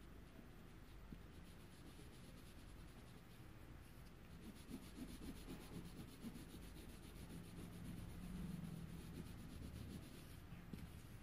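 Colored pencil rubbing on paper in quick, even back-and-forth strokes, faint, starting about four seconds in and stopping shortly before the end.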